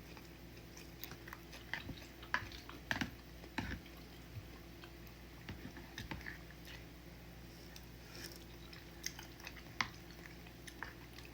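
Close-up eating sounds: a person chewing and slurping soft udon noodles in broth, with scattered small wet clicks from the mouth. A steady low hum sits underneath.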